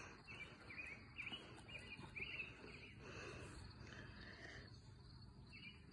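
Near silence with faint, short bird chirps repeating every half second or so.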